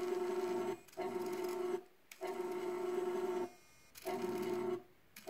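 A small electric motor in a model boat whirring with a steady buzzing pitch, in repeated bursts of about a second with short pauses between, as it drives the moving mast searchlight.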